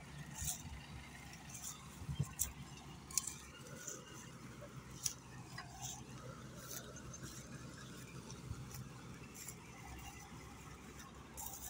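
Combine harvester running: a steady low engine drone with scattered sharp clicks over it.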